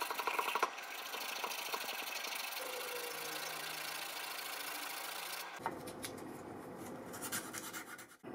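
Quick back-and-forth strokes of an abrasive rubbing a small metal fishing spoon, scrubbing off rust and old plating over a steady hiss. The strokes are clearest near the start and again around seven seconds in.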